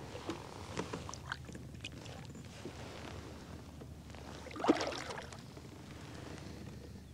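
Light water splashing beside a kayak as a caught bass is released over the side, with small knocks and clicks of gear on the hull. One louder splash comes about two-thirds of the way through.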